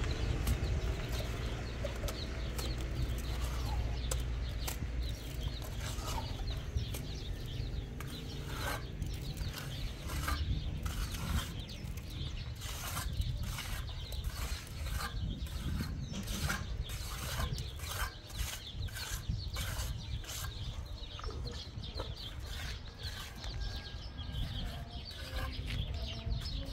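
A run of sharp, irregular knocks or clicks, about one or two a second, beginning some six seconds in, over a steady low rumble.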